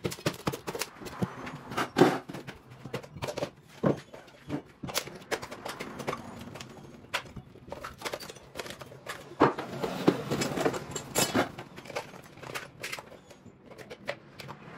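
Irregular clicks, knocks and clatter of hand tools and hardware being handled during electrical work at a breaker box. There is a loud knock about two seconds in and a denser run of clatter around ten seconds in.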